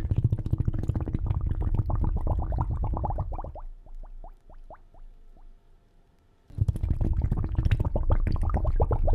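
Underwater bubbling sound effect: dense streams of bubbles with a low rumble, thinning about four seconds in to a few single bubble plops, briefly almost silent, then bubbling again near the end.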